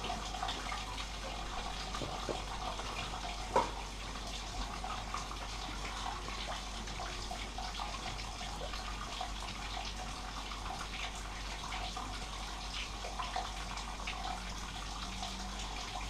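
Paintbrush dabbing and spreading a thick caustic soda and xanthan gum paste onto a painted metal panel: soft wet brushing over a steady background hiss, with one sharp knock about three and a half seconds in.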